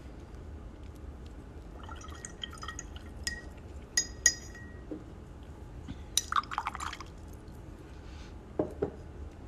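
A watercolour brush being rinsed in a glass jar of water: it clinks against the glass several times with short ringing tones, then swishes through the water about six seconds in.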